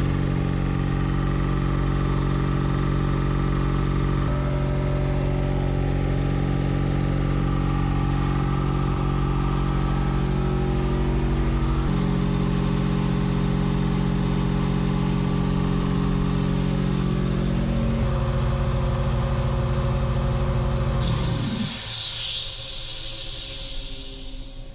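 Quincy QT-54 Pro air compressor's V-twin pump and 5 hp electric motor running steadily and smooth sounding on its first run, pumping up the 60-gallon tank. About 21 seconds in it slows to a stop, and a hiss of air follows for a few seconds.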